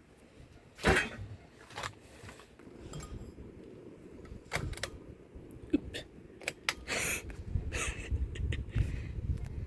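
Hampton Bay Sinclair 44-inch ceiling fan running, with a steady low rumble. A run of sharp, irregular clicks and clinks, the loudest about a second in, with a busier cluster in the second half.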